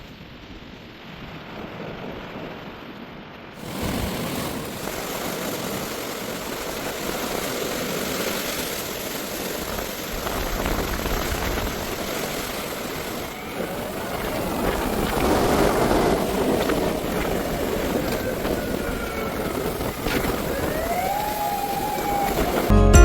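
Steady rushing outdoor noise, like wind and passing traffic, getting abruptly louder about four seconds in. In the second half a few short rising and falling whistle-like tones sound over it.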